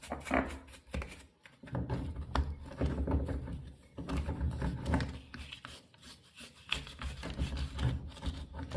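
Old toothbrush scrubbing around the bathtub faucet valve, a run of short, irregular scratchy brushing strokes with a couple of brief pauses.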